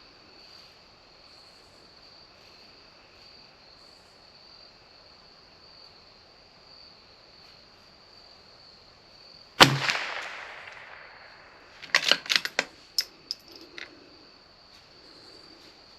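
A single .22 LR shot from a CZ 457 bolt-action rifle about ten seconds in, ringing off over about a second. About two seconds later comes a quick run of sharp metallic clicks as the bolt is cycled for the next round. A steady high trill runs throughout.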